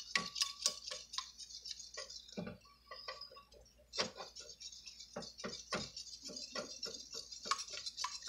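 Wire whisk beating eggs and cream in a ceramic bowl: quick, rhythmic ticking of the wires against the bowl over a wet swishing. It eases off about three seconds in and picks up again a second later.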